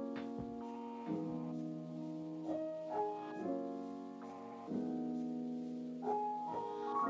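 Soft background piano music: slow, sustained chords that change about once a second.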